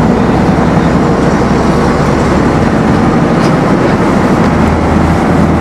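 AEC Reliance single-deck bus heard from inside its saloon: the diesel engine running with a loud, steady drone under the body and road noise of the moving bus.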